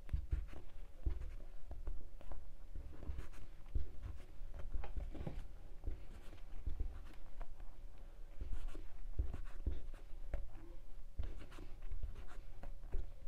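Crochet hook working thick macrame cord: irregular scratchy rustling and small clicks as the cord is pulled through stitches, with low thumps from the work being handled.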